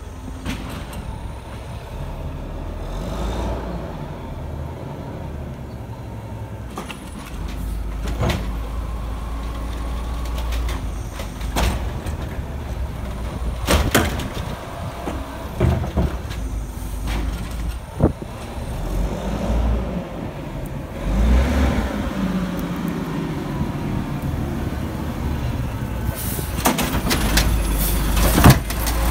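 Mack LE garbage truck with an Amrep automated side-loader body running as it works up the street, its engine revving as it pulls ahead between stops, with sharp air-brake hisses and knocks. It grows louder as it draws up close near the end.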